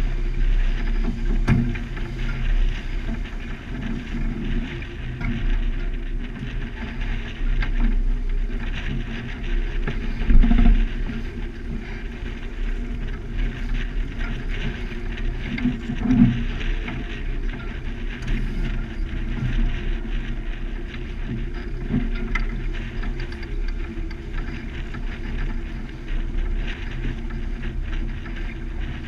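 Small sailboat moving briskly under sail: water rushing and splashing along the hull over a steady low rumble, with a few dull thumps, the loudest about ten seconds in.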